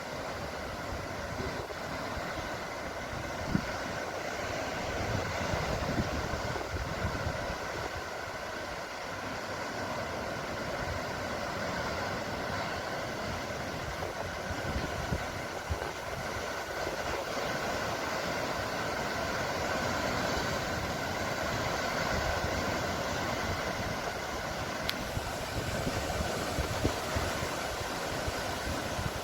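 Sea waves washing in a continuous rushing noise that slowly swells and eases, with a faint steady hum underneath.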